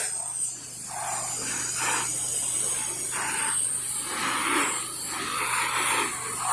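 Pressure washer spraying, a hiss that swells and fades every second or so over a steady high hiss and a low hum.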